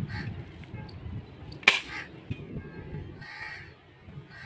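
Crows cawing several times, with a single sharp click about a second and a half in and low handling rustle throughout.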